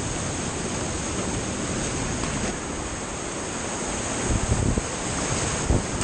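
Whitewater rapids rushing past a kayak running them: a loud, steady rush of water, with splashes and several low thuds in the second half as the boat drops through the waves.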